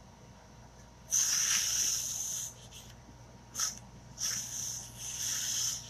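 Terry fuzz cloth rubbed over the sticky back of a vinyl chalk transfer: two swishing strokes, each a little over a second long.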